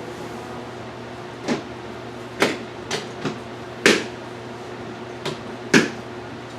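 A series of about seven sharp knocks and clicks, irregularly spaced, the loudest about four seconds in and near the end, over a faint steady hum.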